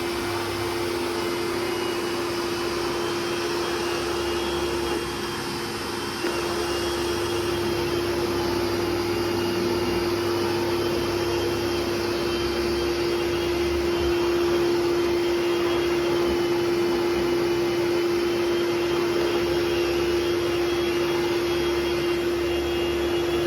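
Miracle Mate canister vacuum cleaner running steadily: a rush of air with a steady motor tone, briefly dipping in loudness about five seconds in.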